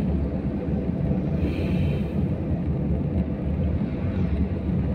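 Steady low rumble of a car on the move, engine and tyre noise, with a brief faint higher hiss about one and a half seconds in.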